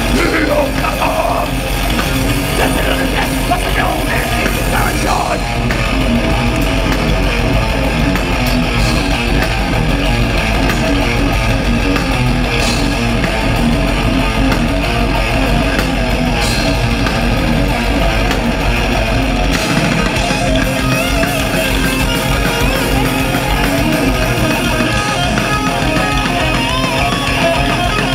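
Thrash metal band playing live at high volume with no vocals: distorted electric guitars, bass guitar and drums. About twenty seconds in, the lowest end of the mix turns choppier.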